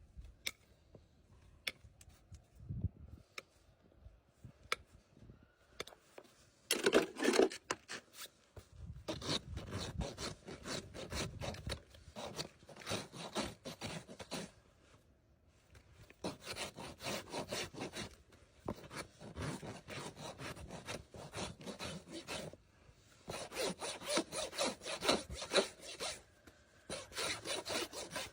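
Farrier's rasp filing a horse's hoof wall, in runs of quick back-and-forth scraping strokes with short pauses. A few light clicks come before the rasping starts about six seconds in.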